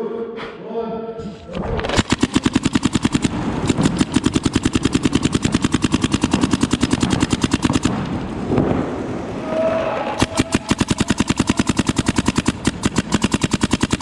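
Paintball markers firing in rapid strings of shots, with a break of about two seconds near the middle.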